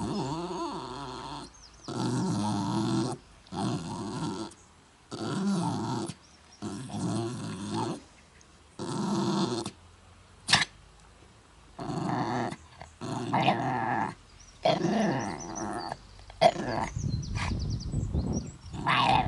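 Jack Russell terrier 'singing': a string of drawn-out howling cries, each about a second long with short pauses between, pitch bending up and down. A single sharp click comes about ten seconds in.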